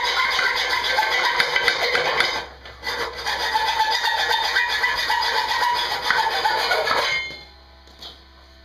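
Steel being worked down with an abrasive tool in a loud, continuous rasping run. There is a short break about two and a half seconds in, and it stops about seven seconds in. The work is truing a frame bracket that was about 2 mm out of square.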